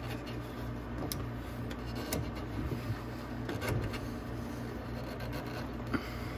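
Gloved hand working a battery loose inside a mini Jeep's plastic body: faint rubbing and scraping with a few light knocks, over a steady low hum.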